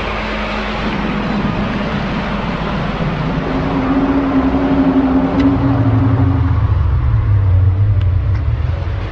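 A loud, low drone over a steady rushing noise. A held tone sounds in the middle, then gives way to a deeper hum that carries on to the end.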